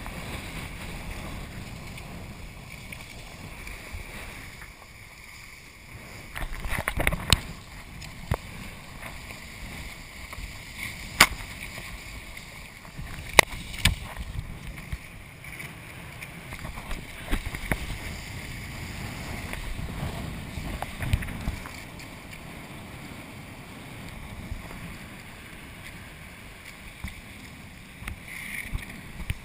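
Wind and water rushing and splashing past a kiteboarder's action camera as he rides, with several sharp knocks on the camera.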